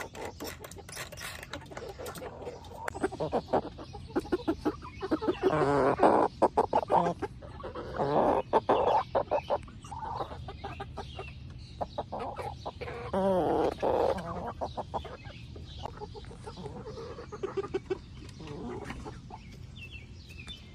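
Young chickens clucking and calling, with the loudest calls coming in clusters about six, eight and thirteen seconds in, amid many short sharp clicks.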